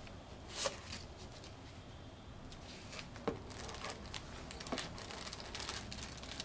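Unpacking: cardboard box flaps being folded open and plastic bags crinkling as packed parts are lifted out. Irregular rustles and light knocks, with the biggest about half a second in and a sharp knock about three seconds in.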